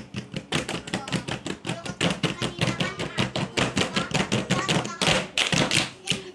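Many hands slapping and tapping a wooden tabletop in quick succession, several taps a second, as in a group hand-tapping game.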